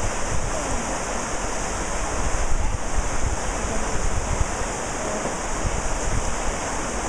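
Steady rushing noise with an uneven low rumble of wind buffeting the microphone.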